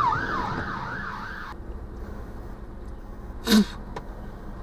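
An ambulance siren on its fast yelp setting, heard from inside a car: the pitch sweeps up and down about two and a half times a second, then cuts off about a second and a half in. Steady car running noise follows, with one brief loud sound about three and a half seconds in.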